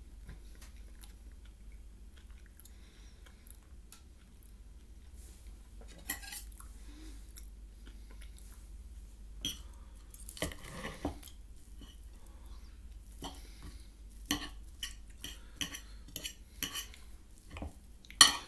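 Knife and fork clinking and scraping on a plate, cutting into food: scattered sharp clicks and short scrapes after a quieter first few seconds, with one loud clink near the end.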